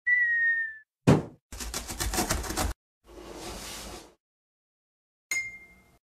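A sequence of cartoon intro sound effects: a falling whistle, a short loud downward swoop, a rapid rattle of about eight strokes a second, a second-long whoosh, then a bright ding that rings on near the end.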